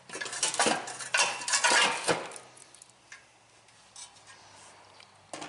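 Metal blower shroud of a small Briggs & Stratton lawn mower engine being worked loose and lifted off: metallic scraping and clattering for about two seconds, then a few light clicks.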